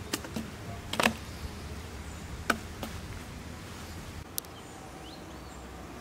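A handful of sharp knocks and clicks at uneven intervals, the loudest about a second in and another at two and a half seconds, over a steady low rumble; a few faint chirps near the end.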